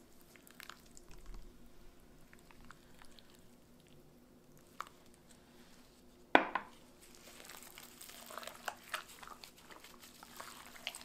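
Gloved hands rubbing thick chile marinade into raw lamb in a clay bowl: soft, wet squelching in the second half, after a single sharp knock about six seconds in. A faint steady hum runs underneath.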